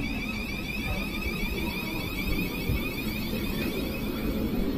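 Door-closing warning on a Thameslink Class 700 train: a rapid run of high beeps that stops near the end, signalling that the doors are about to shut before departure. A steady low rumble from the standing train runs underneath.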